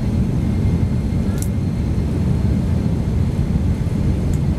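Steady low rumble of a Boeing 767-300ER heard inside the cabin while the airliner rolls along the runway: engine and rolling noise, with two faint high clicks, one about a second in and one near the end.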